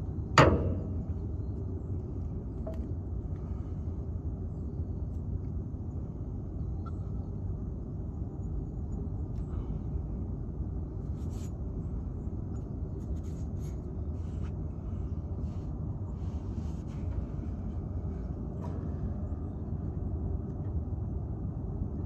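A single sharp knock about half a second in, then a few faint clicks of hands and tools working on combine parts, over a steady low rumble.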